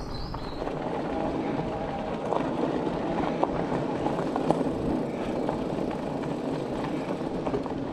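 Electric bike tyres rolling over a gravel and dirt track, a steady crunching rumble with scattered small knocks, the loudest about two and a half, three and a half and four and a half seconds in.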